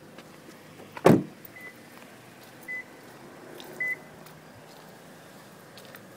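A 2013 Toyota Corolla S car door shut with a single solid thud, followed by three short, high electronic beeps about a second apart.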